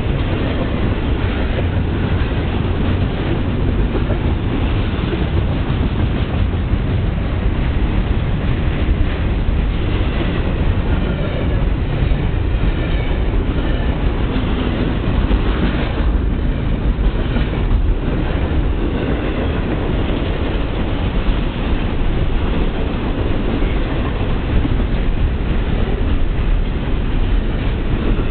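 Double-stack container train's well cars rolling past at close range: a loud, steady rumble of steel wheels on the rails.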